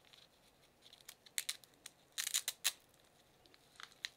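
Velcro tie on a coiled USB-C charger cable being pulled open: short crackles about a second and a half in, then a dense crackling rip a little past two seconds, with lighter clicks of the cable being handled near the end.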